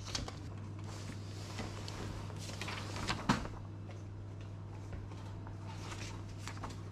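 Paper and banknotes being handled: light rustles and small clicks over a steady low electrical hum, with one sharper knock about three seconds in.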